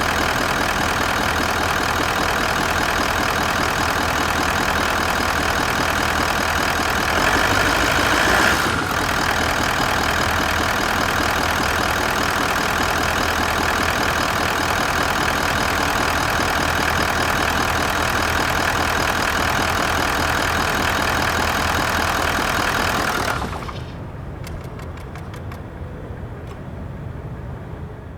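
Toyota Land Cruiser 200's 4.5-litre V8 D-4D turbodiesel idling steadily, briefly louder for a second or two about seven seconds in. Near the end the engine is shut off and the sound drops to a quiet hum with a few faint clicks.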